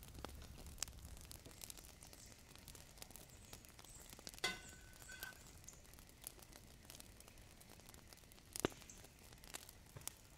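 Faint scattered crackles and small clicks. About halfway through there is a click followed by a brief high tone, and near the end a single sharp snap, the loudest sound in the stretch.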